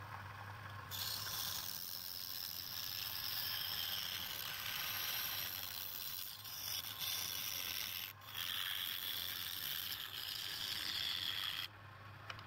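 Wood scraping against a turning tool on a spinning lathe workpiece over a steady low hum. The scraping starts about a second in, breaks off briefly around eight seconds and stops shortly before the end.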